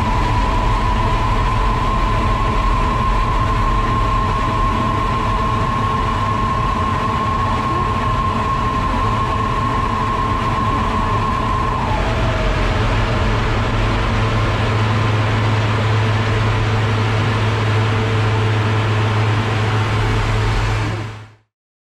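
Loud, steady engine and airflow noise inside the cockpit of a Lockheed TF-104GM Starfighter, whose General Electric J79 turbojet is running in flight. A steady whine sits over the noise until about halfway through, when it drops out and the noise turns hissier with a deeper hum. The sound fades out near the end.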